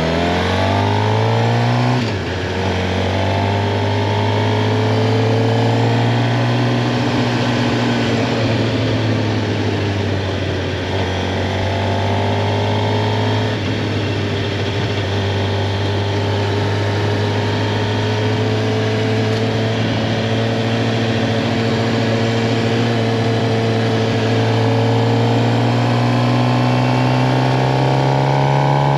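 2023 Suzuki GSX-R 750's inline-four engine under way: the revs climb and then drop sharply with an upshift about two seconds in. They then hold fairly steady, dip and recover around the middle, and climb again near the end.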